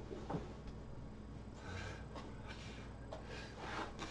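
A sleeping dog snoring noisily, with rasping breaths about every two seconds and a short, sharp snort near the start.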